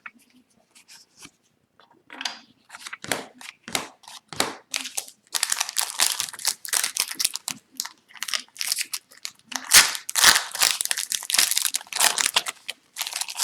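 Foil wrapper of an Upper Deck Series 1 hockey card pack crinkling and tearing as it is opened. A few scattered crackles at first, then a dense, rapid run of crinkling from about five seconds in.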